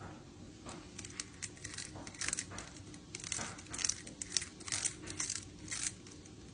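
A cat gnawing on the rim of a wicker basket: irregular, faint crackling and creaking of the wicker under its teeth.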